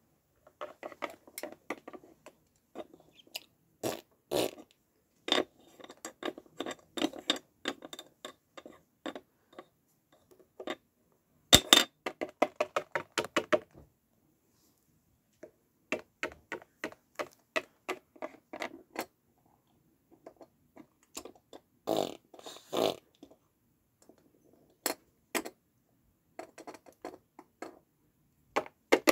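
Mouth-blown fart noises in short rapid bursts, stopping and starting, as a sound effect for a toy animal going to the bathroom. A sharp click sounds about twelve seconds in.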